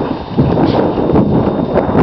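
Wind buffeting the camera's microphone, a loud, rumbling noise, with irregular soft thumps of footsteps in sand.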